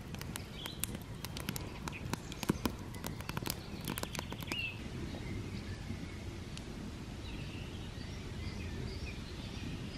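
Wood campfire crackling, with many sharp pops over a low steady rumble; the pops die away about five seconds in. After that, only faint outdoor background remains, with a few faint bird chirps.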